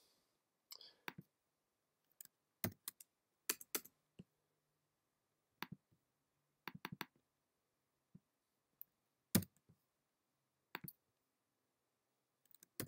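Sparse clicks of a computer mouse and keyboard keys, some single and some in quick pairs, with near silence between them.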